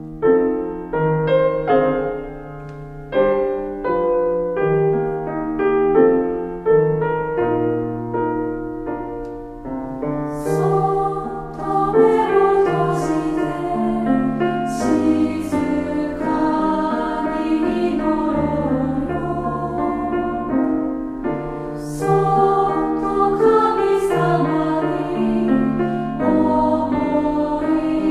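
Christian choral song from a small women's religious choir with piano: the piano plays alone at first, and the choir's singing comes in about ten seconds in.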